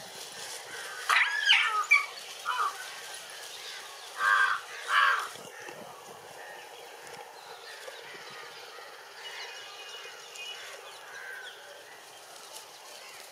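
A few loud, short animal calls in the first five seconds, two of them close together about four and five seconds in, over a steady outdoor background with faint chirping.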